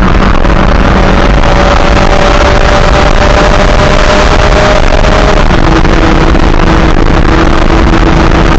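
Tuned big-turbo Audi A5 2.0T cruising on the highway, heard from inside the cabin: a loud, steady rumble of engine, tyre and wind noise. A faint tone runs through it and drops to a lower pitch about five seconds in.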